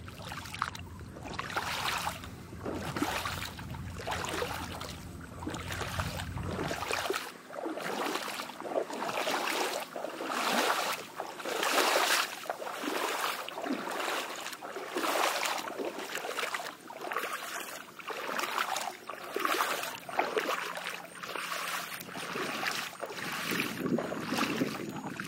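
Water splashing in a steady rhythm, a little over one splash a second, in a flooded paddy field.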